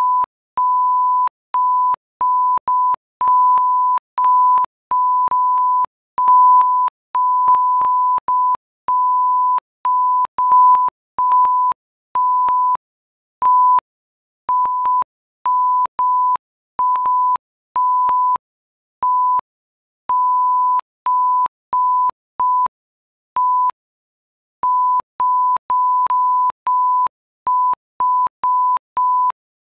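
A single steady electronic tone of about 1 kHz, switched on and off in an irregular string of short and long beeps with gaps between them. Each beep starts and stops with a click.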